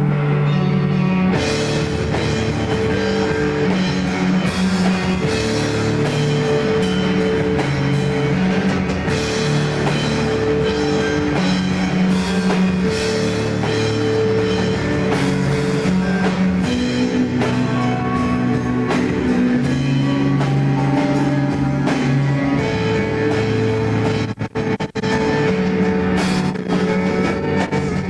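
Rock music with electric guitar and drum kit, steady held chords over a beat, with two very short breaks about 24 seconds in.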